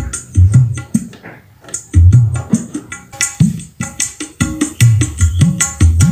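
Music with a steady drum and bass beat, played into a Polytron DAT 57 tape deck's input and out through a loudspeaker as an audio test. The deck's output is very low, the fault it was brought in for.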